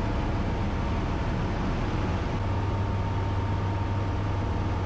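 Steady drone of a Breezer B600 light aircraft's engine and propeller, heard inside the cockpit, with a thin steady tone above it. The low hum grows stronger about halfway through.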